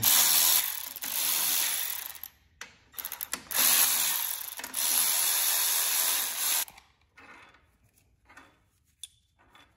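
Milwaukee cordless electric ratchet running in three bursts of a second or two each as it spins out the engine's cylinder head bolts, with short blips between them. Then a few faint clicks as the loosened bolts are handled.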